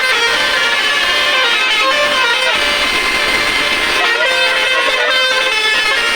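Tour-bus telolet horns, Basuri horns on a DAV module, playing a tune of stepping and gliding notes over guitar-led music.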